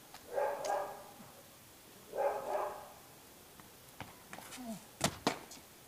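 A dog barking in two short bouts in the first three seconds. A few sharp knocks follow about four to five seconds in, the loudest of them a little after five seconds.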